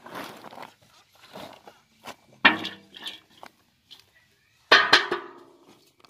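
Thin raw potato slices rustling and pattering as they are tipped from an aluminium basin and spread by hand on a plastic mat. Two sudden louder sounds stand out, about two and a half and nearly five seconds in.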